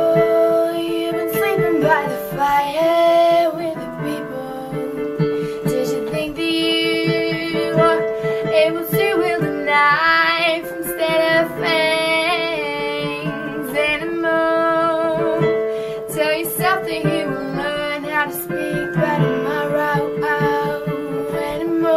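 A female voice singing a slow acoustic song over sustained instrumental accompaniment, the sung lines rising and falling with vibrato between held instrument chords.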